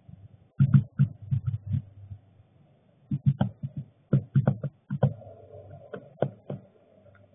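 Northern flicker pecking seed from a bird feeder tray, its bill knocking on the feeder in quick runs of dull taps: one run about half a second in, another from about three to five seconds, and a few single taps near the end.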